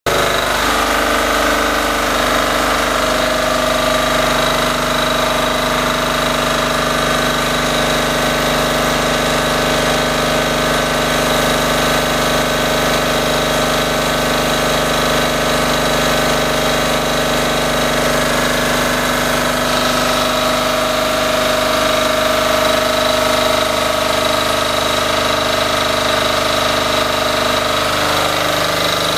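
Mellga MDG7500 7 kVA portable diesel generator's engine running steadily on a test run. Its tone shifts slightly about twenty seconds in and again near the end.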